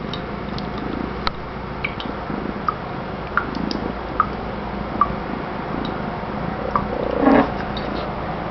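Water dripping into a kitchen sink, single drops landing irregularly about once a second over a steady hiss, with a short louder sound about seven seconds in.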